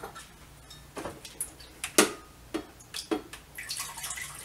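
A few light clinks and knocks as a glass measuring cup is handled, then water pouring from a pitcher into the glass cup near the end.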